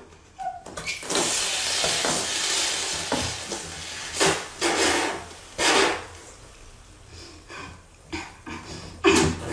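Coca-Cola foaming up after Mentos are dropped in: a loud fizzing hiss for about two and a half seconds, then several short gushing bursts as the froth is forced up against a mouth sealed over the bottle neck. A sudden loud burst near the end.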